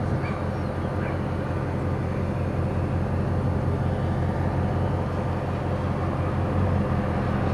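A car driving on a highway: a steady low rumble of engine and road noise, without change.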